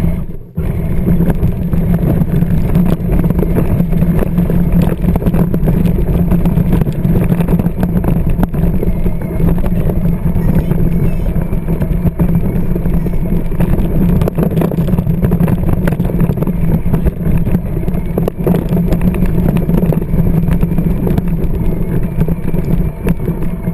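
Battery-powered John Deere Ground Force ride-on toy tractor driving, its electric drive motor and gearbox running with a steady drone.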